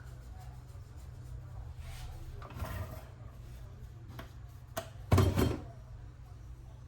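Clicks and clatter of small metal parts and tools being handled during reassembly of a key cutting machine, with a short louder clatter about five seconds in, over a steady low hum.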